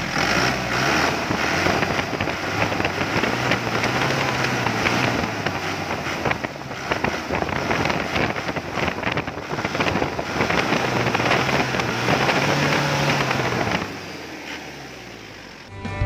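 Isuzu Panther 2.5 turbo's four-cylinder diesel engine running with a busy diesel clatter. It is revved up, held and let back down twice, from the injection pump lever. The engine sound drops off to a quieter level near the end.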